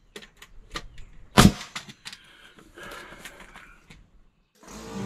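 Pneumatic framing nailer on an air hose firing a nail into wooden framing about a second and a half in, the loudest sound, with lighter clicks and knocks of the tool and lumber around it. Music starts near the end.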